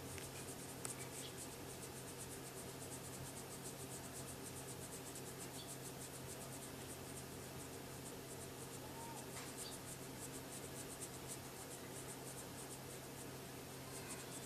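Soft, rapid, rhythmic scratching as fingers rub a cat's fur around its head and cheek.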